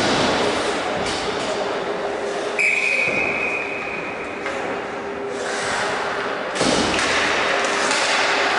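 Indoor ice hockey rink noise during a face-off: echoing knocks and scrapes of skates and sticks on the ice, with a steady high tone lasting about two seconds in the middle. The noise grows suddenly louder about two-thirds of the way through.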